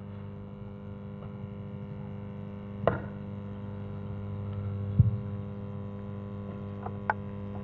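Steady electrical mains hum from a public-address system with an open microphone. A click sounds about three seconds in, a low thump about five seconds in, and a couple of small clicks near the end.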